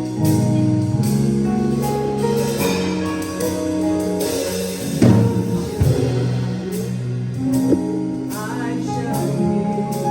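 Gospel music with singing over bass, keyboard and drum kit.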